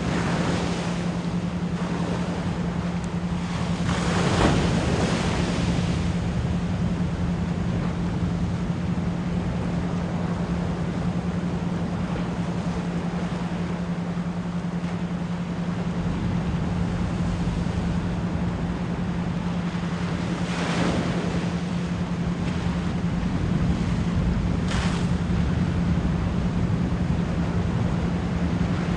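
Ocean waves washing in under a 174 Hz pure tone pulsed as an isochronic tone. The tone is a steady low hum. The surf swells about four seconds in and again around twenty-one seconds, with a short rush of spray a few seconds later.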